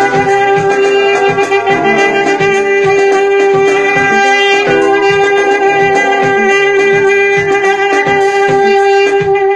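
Saxophone playing a long held note over a backing track with a steady beat.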